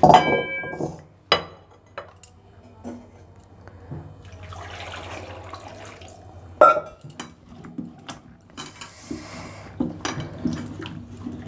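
Peeled sweet potatoes being washed by hand in a steel bowl: metal clinks on the bowl, water poured in from a jug for a couple of seconds about midway, then splashing and knocks as the potatoes are rubbed in the water.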